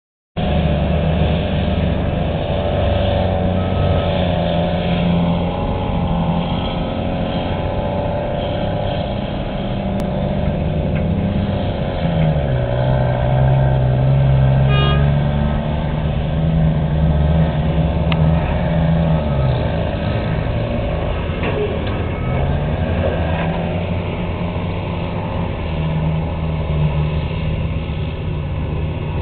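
Heavy diesel engines of a Komatsu 1250 excavator and dump trucks running steadily, the pitch dipping and rising as the engine load changes partway through. A short beep about halfway through.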